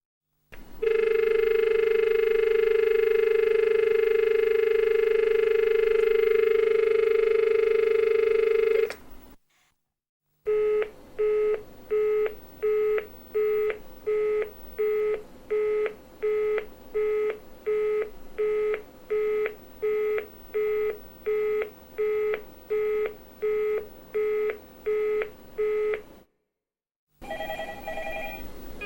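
Telephone dial tone held steady for about eight seconds, then, after a short gap, a busy signal: the same tone beeping on and off about one and a half times a second. A different telephone ring begins near the end.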